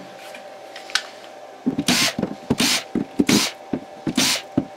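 Cordless drill-driver run in short bursts on a screw holding the CNC-cut parts down: four quick spins about two-thirds of a second apart, starting a little under two seconds in.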